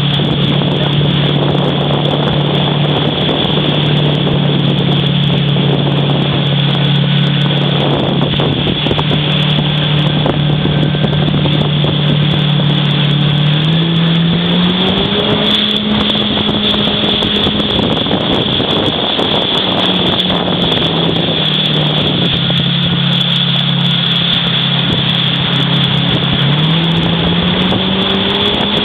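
Motorboat engine running steadily under way. Its pitch steps up about halfway through and again near the end as the throttle changes.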